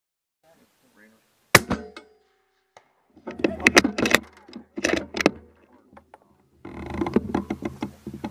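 A single shot from a suppressed .260 Remington Accuracy International AE MK3 rifle with a YHM titanium suppressor: one sharp report about a second and a half in, with a short ringing tail.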